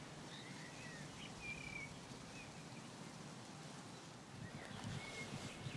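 Birds chirping here and there over a quiet outdoor background, with a few soft handling knocks or rustles near the end.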